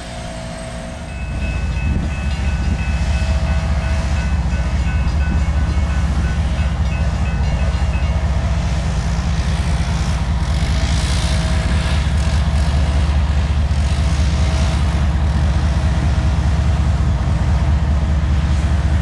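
Freight train rolling past, a steady heavy rumble of wheels on rail that grows louder about a second in.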